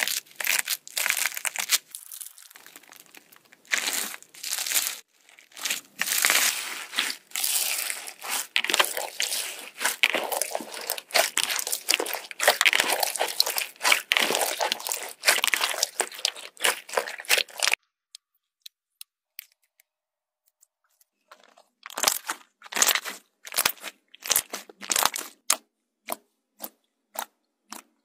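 Slime being squeezed and stretched by hand, giving dense crackling and popping. The crackling stops suddenly about 18 seconds in, and after a few quiet seconds it returns as separate sharp pops.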